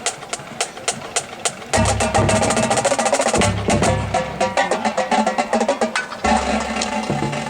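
Marching drumline playing a cadence. It starts with steady stick clicks about four a second, then the full line comes in loud with rapid snare patterns and bass drum hits, and tuned bass drums trade pitched notes near the end.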